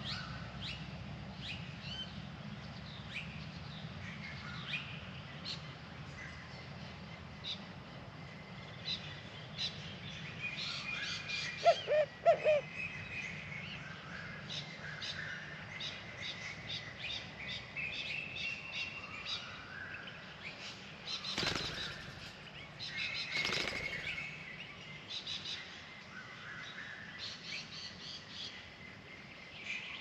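Small birds chirping throughout, with a brief loud three-note call near the middle. About two-thirds of the way through come two short whooshes of wing flapping as the bar-shouldered doves take off.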